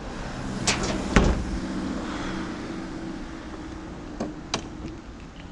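A motor vehicle's engine hums steadily through a busy street scene. Several sharp knocks and rattles sound over it: two about a second in, the second with a heavy thump and the loudest, and two more near the end.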